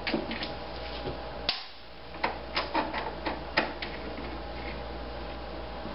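Screwdriver backing screws out of an old window air conditioner's plastic outer case: a run of irregular sharp clicks and ticks over a steady low hum, thinning out in the last two seconds.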